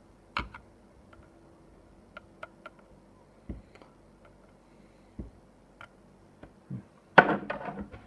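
An alarm keypad being handled: scattered light clicks and a few soft knocks, then a louder clatter of handling about seven seconds in.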